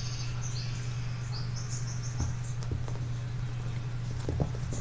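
A few soft knocks and scuffs from a puppy playing with a sandal on carpet, one about two seconds in and a cluster near the end. Under them runs a steady low hum, with short runs of high chirping trills on and off.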